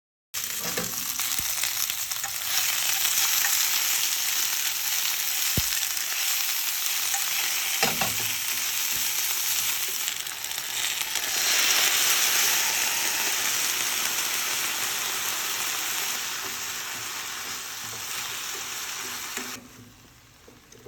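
Food sizzling as it fries in a hot pan, with two brief knocks about six and eight seconds in. The sizzle drops off sharply near the end.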